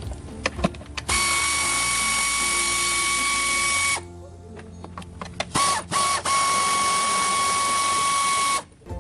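A workshop power tool run in two long, steady bursts, each a hiss with a fixed whine, with two or three short blips of the same sound between them.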